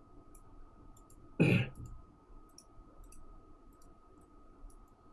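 Light, scattered clicks of a computer mouse, with one short, louder knock about a second and a half in.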